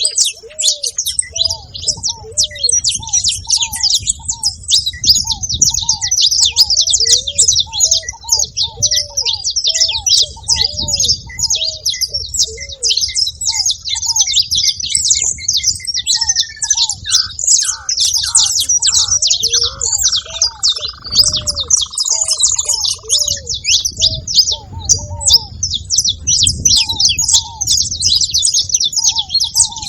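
A group of saffron finches chirping and twittering constantly in a dense, high chorus, over a ruddy ground dove cooing in short, evenly repeated low notes. About halfway through, a longer note slides down in pitch and holds for several seconds.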